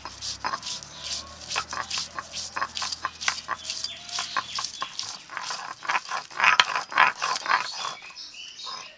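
A stone roller is rubbed back and forth over a grooved stone grinding slab (shil-nora), crushing ginger, garlic and chopped onion into paste. It makes quick, uneven, gritty scrapes, several a second, which stop about a second before the end.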